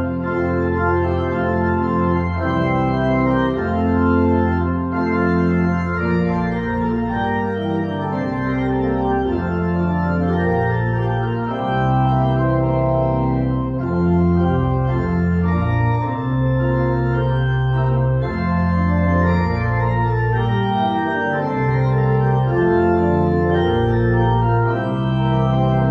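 Church organ playing slow sustained chords, a hymn-like piece with the bass notes changing every second or two.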